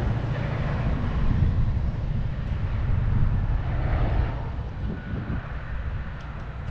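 Wind buffeting the microphone with road noise while riding a bicycle along a street: a steady low rumble that eases off a little near the end.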